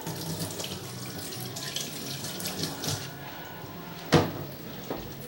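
Water running from a tap and splashing into a sink, with a sharp knock about four seconds in.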